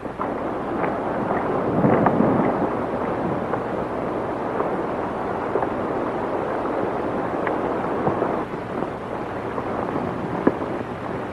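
Several horses galloping: a steady rumble of hoofbeats with scattered sharper clops.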